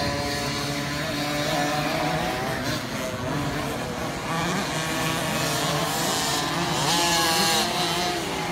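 50cc two-stroke motocross bike engines revving on a dirt track, their pitch repeatedly rising and falling as the riders accelerate and back off, with more than one engine heard at once.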